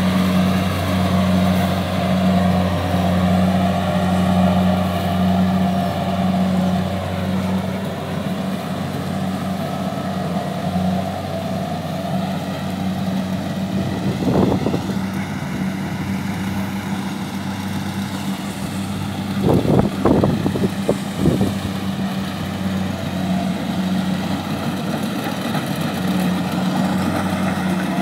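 Kubota DC70 combine harvester's diesel engine running steadily at a constant pitch while it harvests rice. A few sharp knocks break in, one about halfway through and a quick cluster about two-thirds of the way in.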